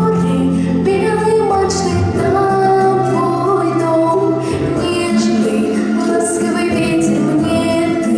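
A woman singing a song over an instrumental accompaniment. Held bass notes change about every four seconds.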